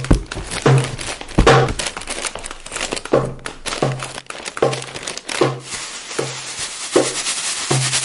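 Rhythmic music or sound collage: a short low note pulses at an even pace, a little more than once a second, under sharp clicks and crackling, crinkling noise.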